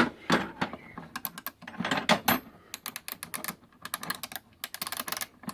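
Facom 3/8-inch drive ratchet clicking in quick runs as its handle is worked back and forth. It starts with a single sharp click.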